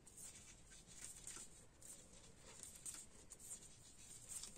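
Faint, irregular soft ticks and rustles of knitting needles and yarn as knit stitches are worked.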